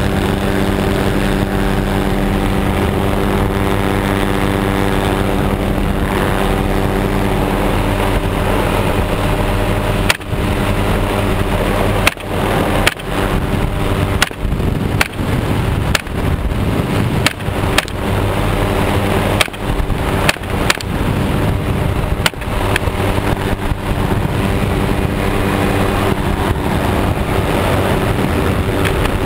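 Helicopter engine and rotor drone, steady throughout, with about a dozen sharp shots from an AR-15 pistol fired at uneven intervals from about ten seconds in until about twenty-two seconds in, each shot briefly cutting the drone.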